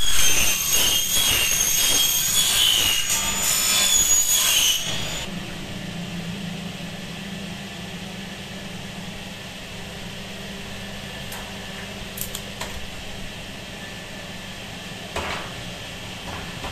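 Power saw cutting aluminium window profile, a loud high-pitched wavering screech of blade on metal that stops about five seconds in. After that, a steady low hum remains with a few light knocks.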